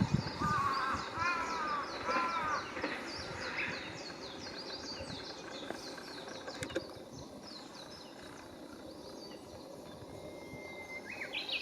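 Birds calling: three arched calls in quick succession near the start over a rapid run of high chirps that fades out about halfway through, with a short whistled note near the end.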